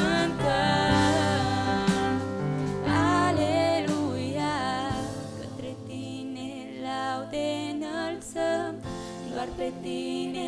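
Women singing a Christian worship song with vibrato, accompanied by an electric keyboard holding sustained low notes that thin out about nine seconds in.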